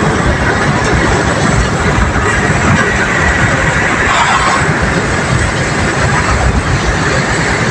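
Steady, loud road and wind noise inside a moving car.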